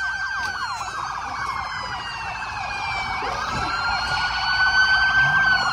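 Several police car sirens sounding at once, slow wails and fast warbling yelps overlapping, growing louder toward the end.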